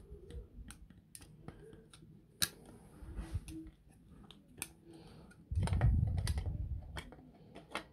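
Hard plastic parts of a chopper's blade and emulsifier head clicking and knocking as they are handled and fitted together, with a louder low rubbing handling noise for about a second and a half, starting about five and a half seconds in.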